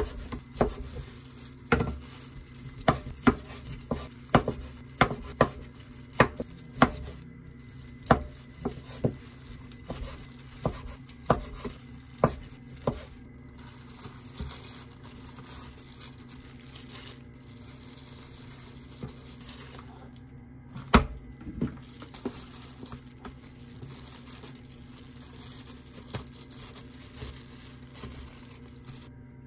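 Large kitchen knife slicing boiled pork belly on a wooden cutting board, knocking on the board about twice a second. About halfway through the knocks stop and give way to the crinkle of a plastic glove as sliced meat is packed into a plastic lunch box, with one sharp knock a little after the middle.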